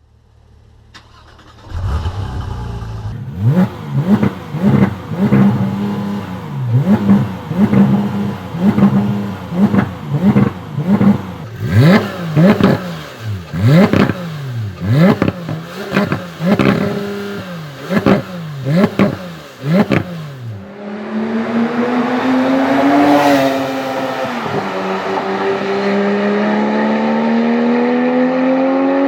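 Porsche 991 GT3's 3.8-litre naturally aspirated flat-six, heard close to the exhaust tips, starting up about two seconds in. It is then blipped in a long series of quick, sharp revs, each rising and falling in pitch. Near the end it pulls away under acceleration, the pitch climbing through one upshift.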